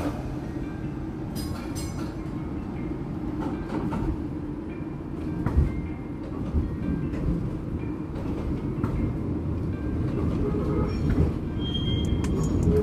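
1944 PCC electric streetcar running along the track, heard from inside the car: a steady low rumble of running gear with scattered clicks and rattles. A brief high wheel squeal comes in near the end.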